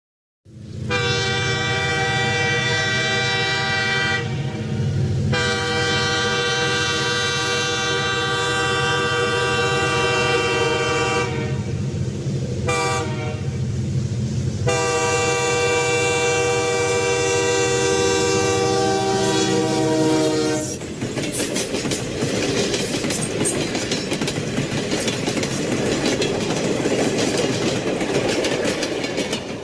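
Locomotive air horn blowing the grade-crossing signal: two long blasts, a short one, then a final long blast. After the horn stops, the train rolls past with a steady rumble and wheels clattering on the rails.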